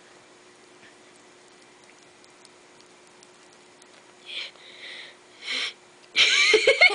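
A girl sniffing sharply through her nose, twice, about four and five and a half seconds in, as she tries to bring on a sneeze. Giggling breaks out near the end.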